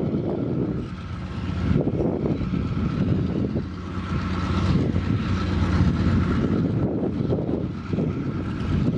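Diesel locomotive running steadily as it hauls passenger cars past, a low engine drone with a faint steady higher whine above it.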